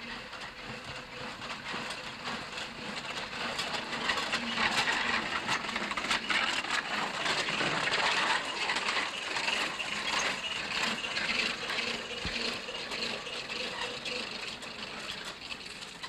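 Homemade 18-inch-gauge battery-electric trolley car running along its track, its wheels clattering and rattling over the rails. The sound builds as the car passes close by about halfway through, then fades as it runs away.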